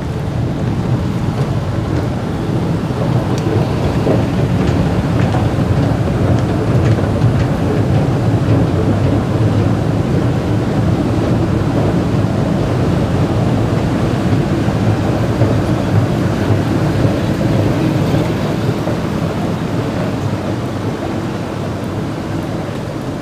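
Steady low rumble inside an underground MRT station. It swells over the first few seconds, holds through the middle and eases off near the end.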